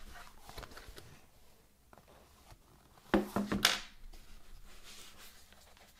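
Hands handling Sony WH-1000XM4 headphones in their fabric-covered hard-shell carrying case: soft rubbing and rustling, with a short cluster of loud clicks and knocks about three seconds in.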